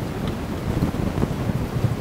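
Low, uneven rumbling noise of wind buffeting the microphone.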